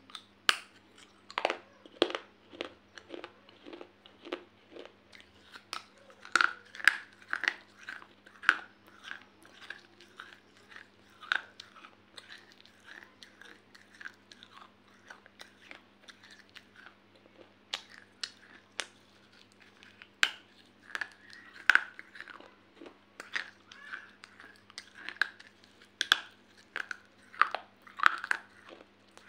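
Close-up chewing and biting of brittle baked clay pot pieces: irregular sharp crunches and crackles, several a second, with some louder bites standing out.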